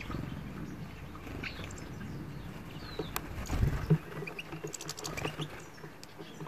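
European goldfinches husking black sunflower seeds in a feeder dish: small clicks and rustling of seeds, with a few short high chirps. About three and a half seconds in comes a loud, low flutter of wings as a European greenfinch flies in and lands on the perch.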